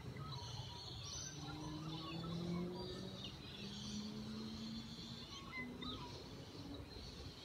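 Birds chirping and calling in a scattered dawn chorus, over the low hum of a vehicle engine that slowly rises in pitch.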